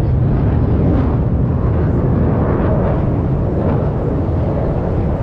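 Loud, steady low jet noise from the F-35 Lightning II's single F135 afterburning turbofan engine passing over during its display, easing slightly near the end.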